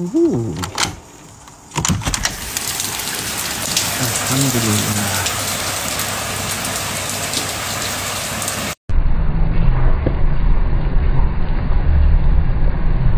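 Heavy rain falling steadily. About nine seconds in, it cuts suddenly to a pot of sweet potato chunks at a hard boil, the water bubbling with a low rumble.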